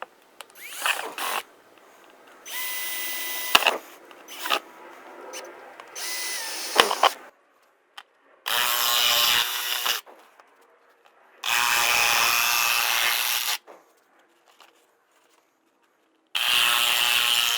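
Handheld electric power tool cutting plastic in short runs. A few quieter, shorter runs come first, then three louder runs of one and a half to two seconds each, with pauses between.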